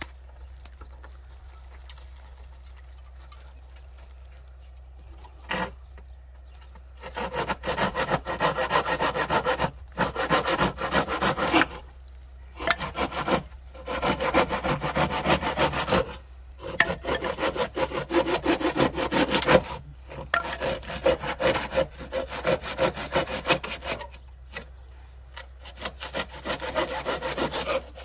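Hand saw cutting through the ends of wooden roof boards in quick back-and-forth strokes, starting about seven seconds in and going in several runs separated by short pauses. A single short knock comes shortly before the sawing begins.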